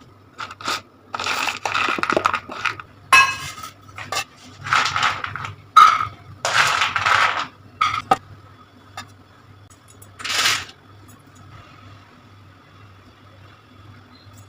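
Kitchen utensils clinking and scraping against dishes in a run of short bursts, which stop about three-quarters of the way through, leaving a faint steady hum.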